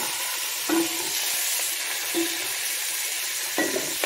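Fresh spinach wilting in hot olive oil in a pot, sizzling steadily as it is stirred with a nylon spatula, with three brief scrapes of the spatula against the pan.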